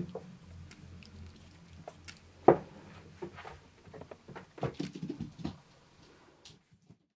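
A kitten's paws tapping and scrabbling on the plastic platform of a digital pet scale. There is one sharp thump about two and a half seconds in, then a quick run of taps about two seconds later as it steps off.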